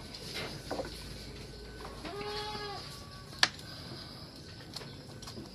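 A goat bleats once, a short call held at one pitch about two seconds in, followed a little over a second later by a single sharp click.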